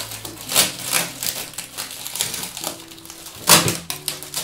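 Protective plastic sheeting and blue tape being crinkled and peeled off a 3D printer's door, in several short crackles, the loudest about three and a half seconds in.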